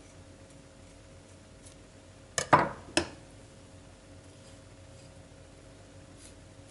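Kitchen knives clinking on a plastic cutting board as one knife is put down and another picked up: three sharp clinks with a short metallic ring, about two and a half seconds in, over a faint steady hum.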